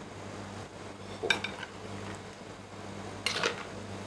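A steel ladle clinking twice against a wok and a ceramic bowl as sauce is dished up, about a second in and again near the end, over a steady low hum.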